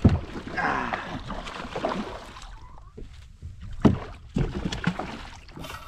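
Handling sounds on a fishing kayak as a small gummy shark is let go over the side: a sharp knock, a stretch of splashing water, then several more knocks against the hull.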